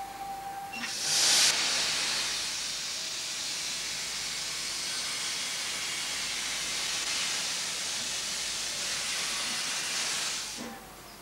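A narrow-gauge steam locomotive's whistle ends in the first second. About a second in, steam begins hissing loudly from the open cylinder drain cocks at the front of the engine. The hiss stays steady and fades away near the end.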